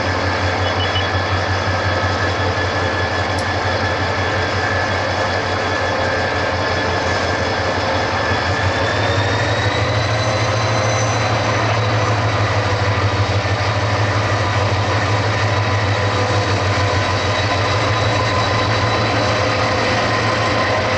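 Diesel locomotive engine running with a steady whine over a pulsing low rumble. About nine seconds in the whine rises in pitch and the rumble grows louder as the engine powers up to pull the train out.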